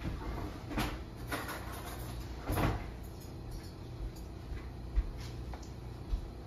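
Kitchen handling sounds: a few soft knocks, with a brief louder scrape about two and a half seconds in, over a steady low hum.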